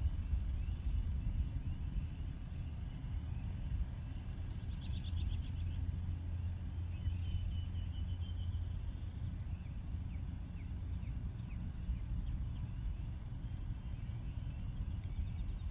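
Outdoor ambience: a steady low rumble, with faint high chirping calls about five seconds in and a thin high call from about seven to nine seconds.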